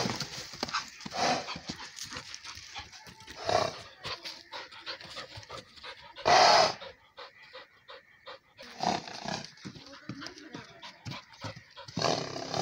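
Dog panting and huffing in short, irregular bursts, the loudest a little past the middle and another near the end.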